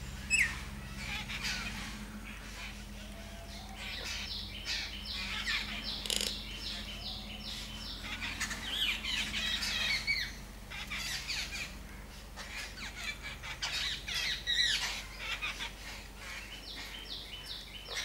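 A flock of babblers squawking and chattering, with harsh overlapping calls and two fast runs of evenly repeated notes, one about a quarter of the way in and one near the end.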